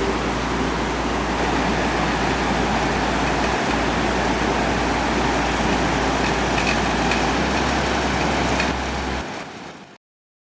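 Rushing river roaring steadily below a cable crossing, a dense even noise that fades out near the end.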